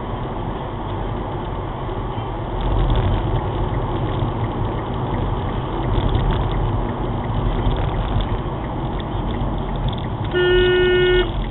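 Car driving, with steady tyre and engine noise heard from inside the cabin. About ten seconds in, a car horn sounds once, a steady tone held for just under a second.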